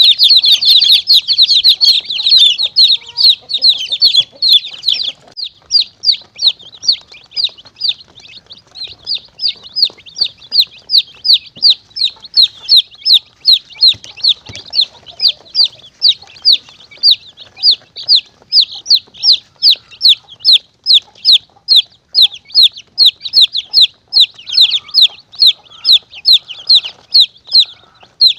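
Chicks peeping shrilly and without pause, the distress-peep call used as a lure for monitor lizards and mongooses. The peeps crowd together for the first few seconds, then settle into an even run of about three a second.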